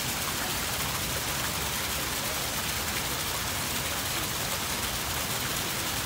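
Fountain water jet from a wall spout splashing steadily into a shallow stone basin: a continuous, even splashing hiss.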